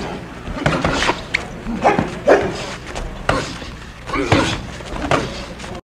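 Boxers sparring: short, sharp vocal grunts about once a second, each with the slap of a gloved punch.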